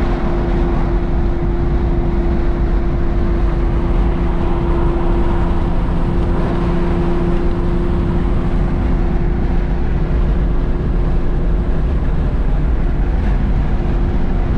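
Car cabin drone at steady motorway cruising speed: the engine holding constant revs, with tyre and wind noise, unchanging throughout.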